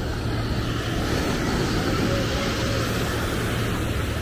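Steady low outdoor noise, with faint distant voices drifting through it.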